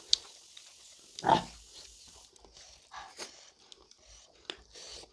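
Close-up eating sounds of hands working rice and food with scattered small clicks and mouth noises. About a second in, one short, loud breathy mouth or nose noise.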